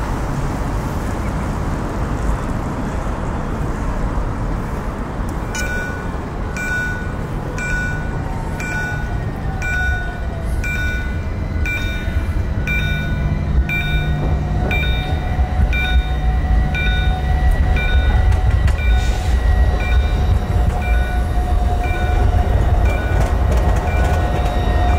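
A tram runs with a low rumble, and its motor whine rises and then holds steady. From about five seconds in, an electronic signal beeps steadily, about one and a half times a second.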